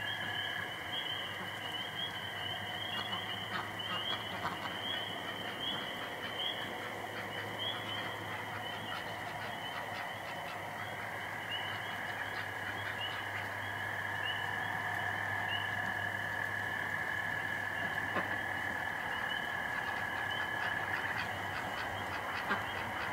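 A chorus of frogs calling: a dense, unbroken trilling with short high chirps repeating over it, above a steady low hum.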